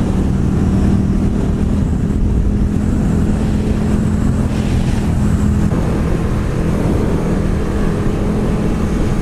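Motorcycle engine running at steady revs while riding along, with wind rushing over the microphone.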